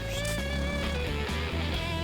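Background music with electric guitar over a steady bass.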